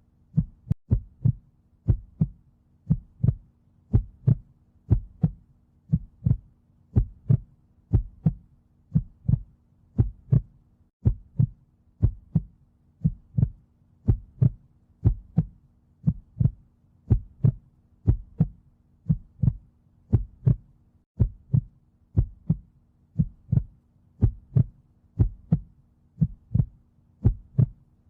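Heartbeat sound, a steady lub-dub double beat about once a second, with a faint steady low hum beneath.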